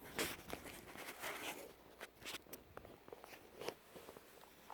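Faint rustling, soft scrapes and light taps of a picture book being picked up and handled.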